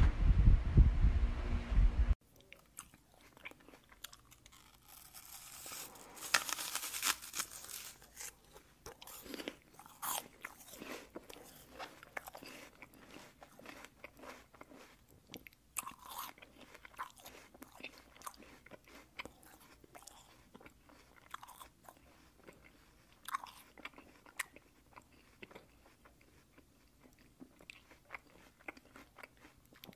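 Cleaver slicing and scraping boiled pig offal on a thick round wooden chopping block: irregular light knocks, clicks and crunchy scrapes. It opens with a loud low rumble that cuts off suddenly about two seconds in.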